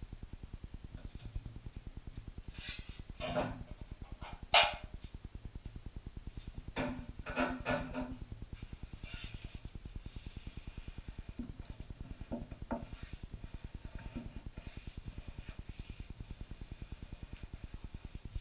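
Drywall knife scraping and clanking against a mud pan while loading and working joint compound. There are a few sharp clanks, the loudest about four and a half seconds in, more around seven to eight seconds, then a few fainter scrapes.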